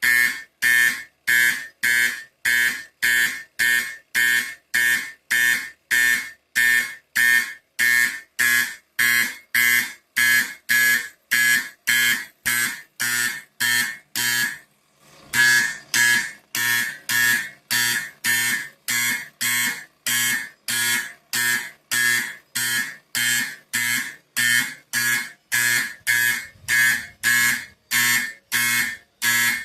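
Simplex fire alarm horn sounding in march-time code from a 1965 Simplex 4246-2 panel: even buzzing blasts about two a second, with one short break about halfway through.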